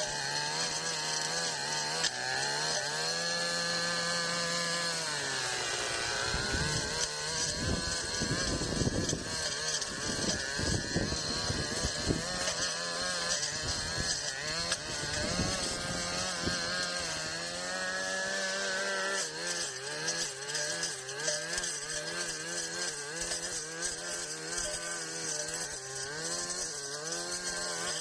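Brush cutter engine running at high speed, its pitch sagging and recovering several times as the blade bogs down in tall grass. For several seconds in the middle, the noise of the blade slashing through grass rises over the engine.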